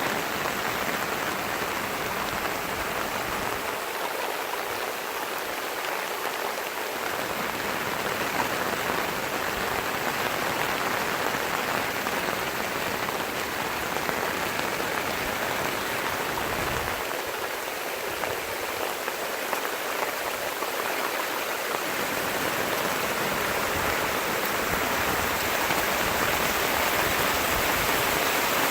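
Heavy rain falling steadily, a continuous even hiss of rain on surfaces.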